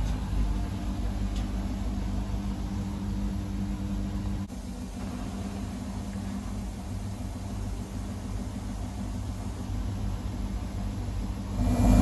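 Samsung Ecobubble Digital Inverter 8 kg front-loading washing machine on its final spin, the drum turning very fast with a steady hum while waste water drains out. The sound changes abruptly about four and a half seconds in and gets much louder near the end.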